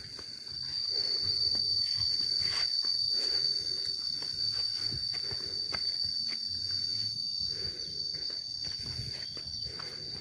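A steady, high-pitched insect drone, loudest of all and swelling about a second in, over footsteps on a path.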